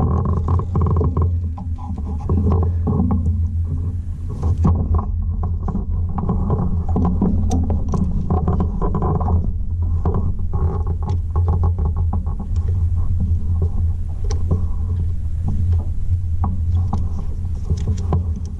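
A steady low machine hum, with scattered light clicks and knocks over it.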